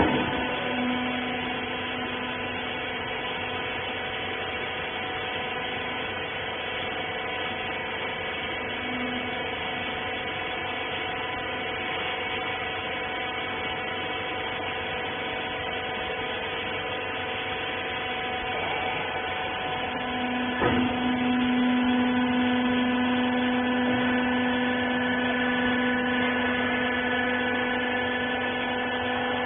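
Wiper-rag baler machine running with a steady electric hum and several even tones. There is a click right at the start and another about two-thirds of the way through, after which a lower tone grows louder and holds.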